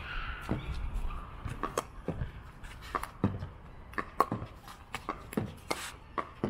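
Pickleball being played: repeated sharp pops of paddles hitting the plastic ball and of the ball bouncing on the court, several a second at an uneven pace.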